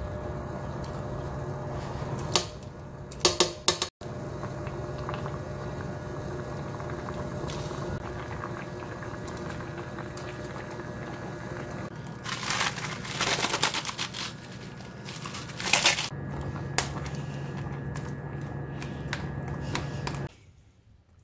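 Steady hum of an induction cooktop under a stainless-steel stockpot of soup on the boil, broken several times by short bursts of clatter as vegetables and mushrooms are tipped into the pot. The hum stops near the end.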